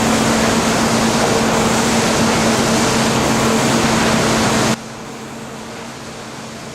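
Steady, loud sawmill machinery noise with a low hum underneath. It drops abruptly to a quieter, similar machine noise nearly five seconds in.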